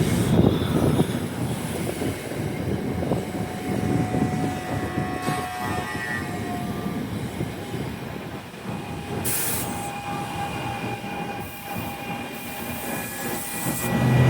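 NJ Transit commuter train rolling along the rails: a continuous low rumble with high steady metallic squealing tones that grow more prominent past the middle.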